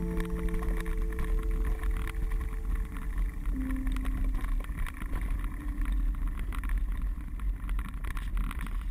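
Bicycle being ridden over a rough, leaf-covered forest trail: a steady low rumble of wind and tyres with continual rattling and clicking from the bike.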